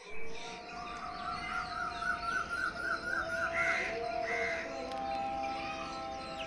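Birds calling, with two crow caws about halfway through, over a soft music bed of held notes.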